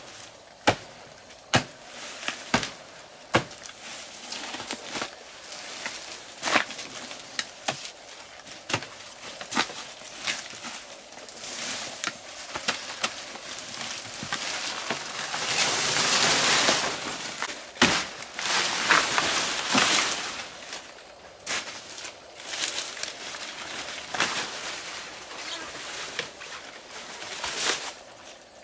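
A long knife chopping into a banana tree's soft trunk, in repeated sharp strikes, roughly one a second at first. About halfway through comes a longer stretch of loud leaf rustling, and then the chops go on.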